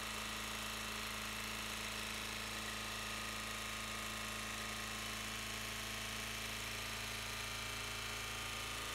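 Lombardini LDA 520 air-cooled single-cylinder diesel running steadily at idle.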